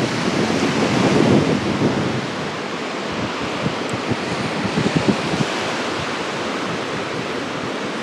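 Black Sea surf washing onto a sandy beach, a steady rush of small breaking waves, with wind on the microphone.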